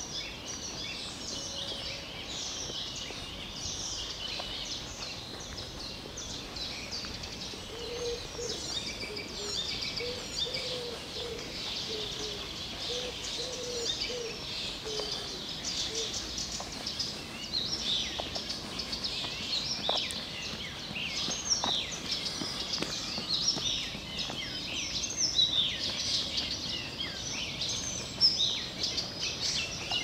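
Several songbirds singing at once, with dense overlapping chirps and trills. A lower call repeats in short phrases for several seconds in the first half.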